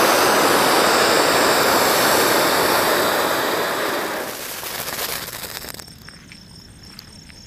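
Ground fountain firework spraying sparks with a steady, loud hiss that fades away from about four seconds in as the fountain burns out.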